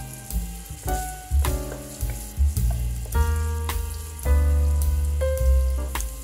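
Diced ham sizzling as it fries in oil and butter in a wok, with a wooden spatula stirring it, under background music with bass notes and a steady beat.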